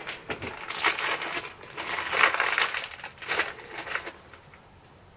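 Small clear plastic parts bag being handled and worked open in gloved hands, crinkling in irregular bursts that stop about four seconds in.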